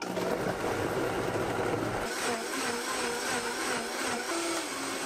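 Vitamix 5200 blender running at speed, blending apple chunks and kale into a green smoothie. It starts suddenly, and about two seconds in the low hum drops away and the sound turns higher and smoother.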